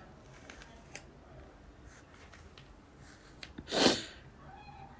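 A person sneezes once, a short sharp burst about four seconds in, with a few faint small clicks before it.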